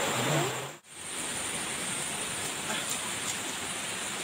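Steady, rain-like hiss of outdoor background noise. It drops out suddenly for a moment about a second in, then carries on evenly.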